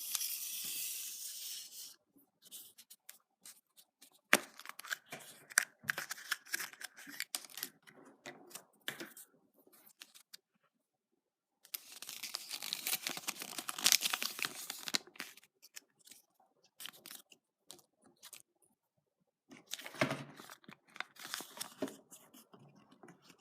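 Foil wrapper of a Kinder Surprise chocolate egg being torn and crinkled off by hand, in several bursts with short pauses between, with sharp cracks and clicks in between.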